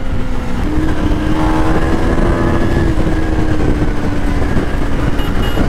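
KTM Duke 250's single-cylinder engine running at a steady pace under way, its pitch edging up slightly about a second in and then holding.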